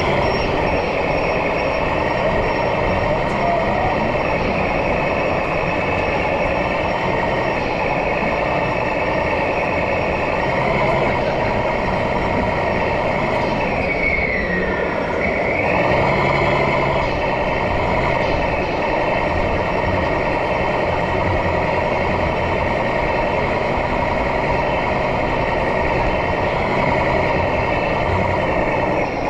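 Radio-controlled model trucks running, their sound modules giving out a simulated truck diesel engine, over the chatter of a crowded exhibition hall. About halfway through, a high whine falls and then climbs again.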